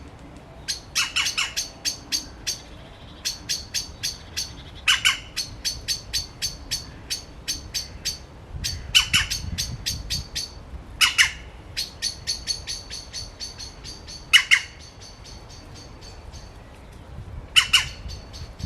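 Birds giving a run of short, sharp alarm calls at about three a second, broken every few seconds by louder harsh squawks, six in all. The birds are mobbing a cat in a tree.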